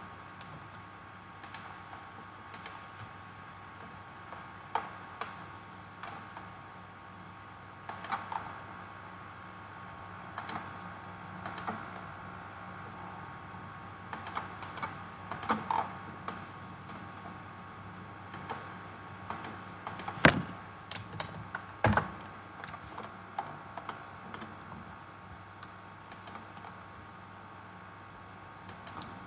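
Irregular clicks of a computer mouse and keyboard, spaced a second or so apart, with a couple of louder clicks about two-thirds of the way through, over a faint steady hum.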